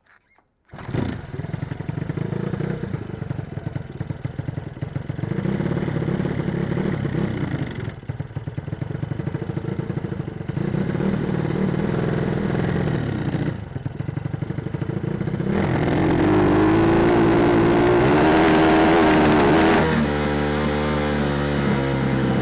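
PitsterPro pit bike's single-cylinder four-stroke engine fires up about a second in and runs unevenly, stumbling several times, revs up for a few seconds near the end and then drops back to a steadier idle. It misfires and sneezes because it is being run on full choke, an over-rich mixture.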